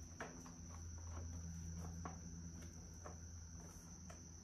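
Crickets trilling steadily over a low hum, with faint scattered clicks and taps of plastic motorcycle tail panels being handled and fitted.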